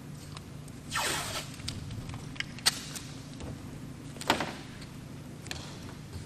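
Strips of tape pulled off a roll, twice: a short rasping tear about a second in and another about four seconds in, with a few sharp clicks between. A steady low hum runs underneath.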